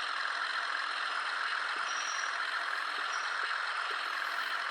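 Early DCC sound decoder in an N gauge British Rail Class 37 model diesel locomotive, playing its steady, noisy diesel running sound through the model's tiny speaker. The brake sound comes in as the loco is notched down.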